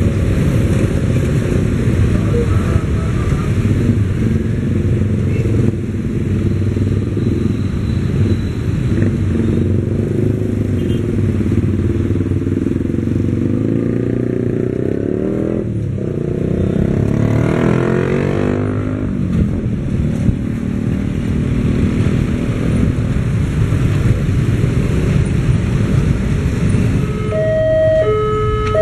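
Steady train and motor-traffic noise as a passenger train's last coaches roll away along the track. About halfway through a vehicle passes close, its engine note rising and then falling. Near the end a two-tone electronic warning signal starts, its two notes alternating.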